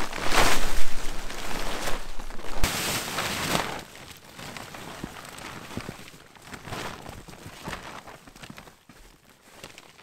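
Snow-laden nylon tent fabric rustling and crunching as it is handled. The sound is loudest in two stretches during the first few seconds, then fades to faint scattered rustles.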